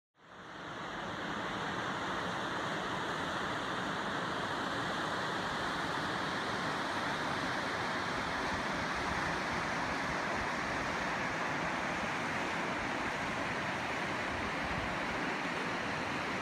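A river rushing over rocky rapids, a steady even rush of whitewater that fades in over about the first second.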